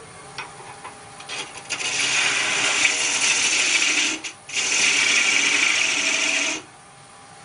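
Turning tool cutting into spinning wood on a lathe, sizing a tenon. The cut starts about two seconds in, breaks off briefly, resumes and then stops sharply.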